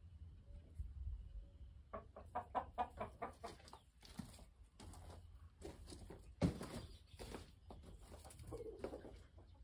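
Chickens clucking in a quick run of short notes about two seconds in, followed by scuffing noises and a sharp thump about six and a half seconds in.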